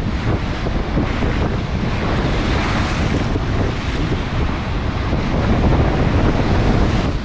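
Storm surf on the Black Sea, waves breaking and washing in with a steady rush, and a surge of wash about two to three seconds in. Strong wind buffets the microphone with a heavy low rumble.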